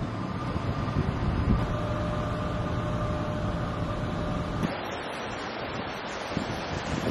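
Wind buffeting the microphone over water noise, with a faint steady hum under it for the first few seconds. The sound changes abruptly about four and a half seconds in, losing its high end.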